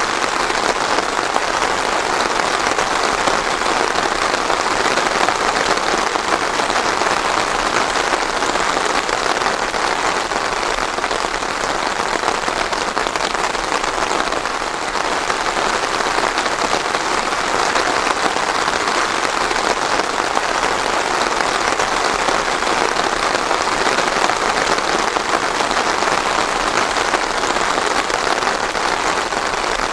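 Steady, heavy rain falling on a surface, an even dense patter with no thunder.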